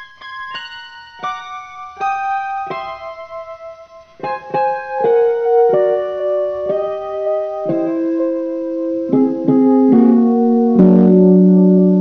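Music: a slow keyboard melody in separate notes. It starts high and sparse, then from about four seconds in adds lower notes and chords and grows louder.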